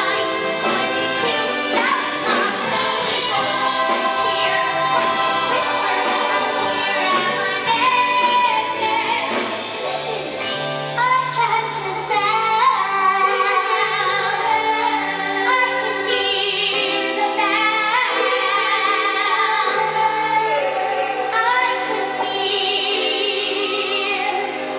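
Live musical-theatre number: voices singing, a woman's among them, with ensemble singing over a band playing steady bass notes.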